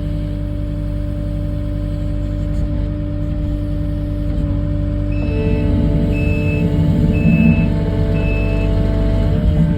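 Kubota skid-steer's diesel engine running steadily, with its reversing alarm giving four short high beeps about a second apart partway through as the machine backs up.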